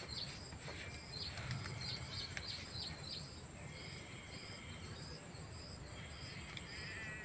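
Rural outdoor ambience: a steady high insect drone with a short high chirp repeating two to three times a second, and a few bird calls, a warbling trill among them near the end.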